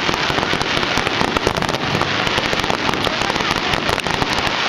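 Fireworks display going off as a dense, continuous barrage of many rapid, overlapping pops and bangs.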